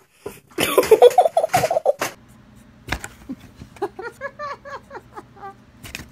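A person laughing hard, a quick run of pulsing laughs lasting about a second and a half. After a click comes a low steady hum with a series of short, soft pitched sounds.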